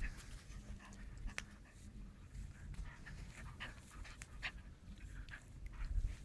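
German shepherd puppy panting while it tugs at a bite sleeve, with irregular short scuffs and clicks from the scuffle.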